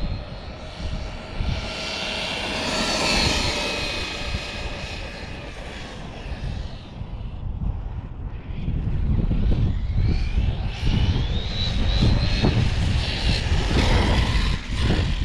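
Losi LMT monster truck's brushless electric motor whining at full throttle on a 3S battery, rising in pitch as it accelerates, loudest about three seconds in, then fading and climbing again from about nine seconds. Wind rumble on the microphone underneath.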